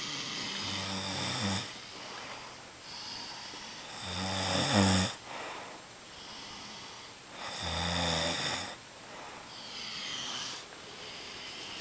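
People snoring in their sleep: three long, deep snores about three and a half seconds apart, the middle one the loudest, with softer breathy noises between them.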